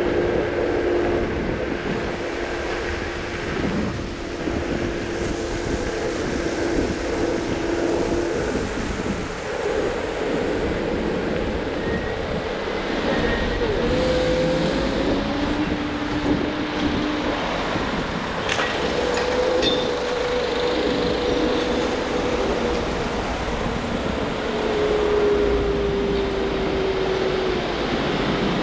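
Riding a Lime electric scooter: steady wind and road rumble, with a thin whine from the scooter's motor that holds one pitch for about eight seconds, then drops and rises again several times as the speed changes.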